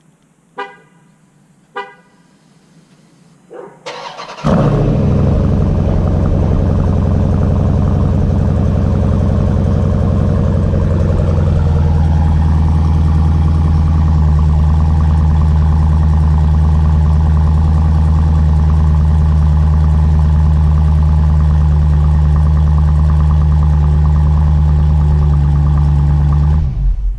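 Two short chime tones, then the 2018 Durango SRT's 392 Hemi (6.4-litre V8) is cold-started after an oil change, with the new filter still to fill. It catches suddenly and runs loud at a high idle for several seconds, settles to a lower steady idle, and is switched off near the end.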